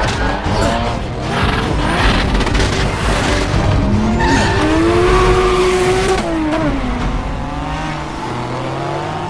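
Race car engines revving hard, their pitch climbing and falling with the throttle, with tyres squealing as the cars slide through a bend.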